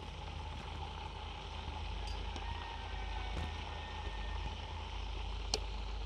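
Quail deep-frying in a large aluminium pot of hot oil: a steady sizzle and bubbling as the birds are turned over, with a few light clicks of a metal skimmer and wire strainer against the pot.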